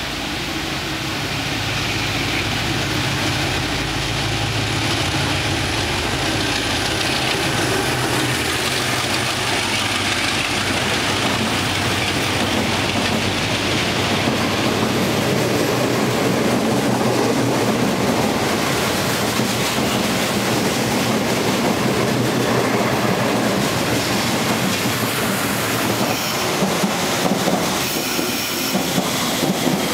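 DF11 diesel-electric locomotive running through at speed, its engine's steady low drone giving way to the noise of 25Z passenger coaches rolling past, with wheels clicking over rail joints near the end.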